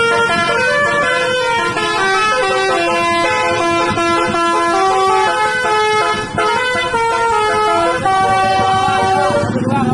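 Tour bus's basuri telolet horn, a set of multi-tone horns, playing a fast, loud melody of stepped notes, with a falling glide near the end.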